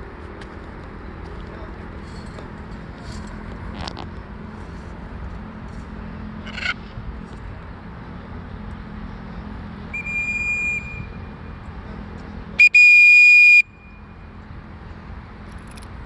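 A whistle blown twice on one steady pitch: a short blast about ten seconds in, then a louder blast of about a second near thirteen seconds. It is the handler's recall whistle for free-flying macaws.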